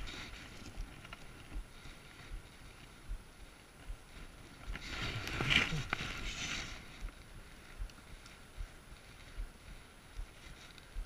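Rustling and handling noise of a brown trout being unhooked with pliers over dry grass and leaves, loudest in a burst from about four and a half to seven seconds in.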